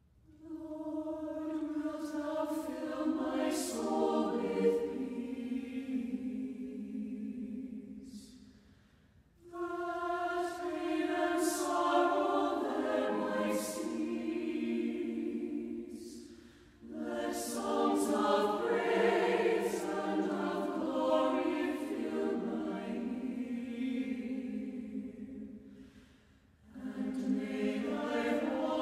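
A choir singing slowly, long held phrases of several seconds each with brief breaks between them, as background music.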